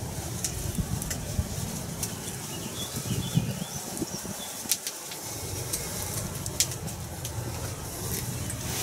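Outdoor ambience: a steady low rush of wind on the microphone, with scattered sharp ticks and faint distant birdsong.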